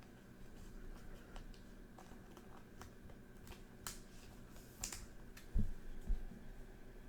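Sports trading cards being handled and flipped one after another: faint scattered clicks and snaps of card stock, with a couple of sharper snaps about four and five seconds in, then two soft low thumps.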